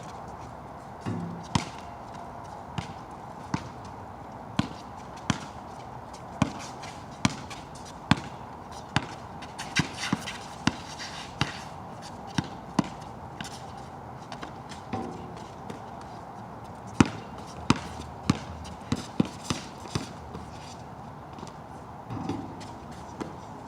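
Basketball being dribbled on a wet court, sharp bounces about once a second that come quicker for a stretch near the end, over a steady hiss of rain.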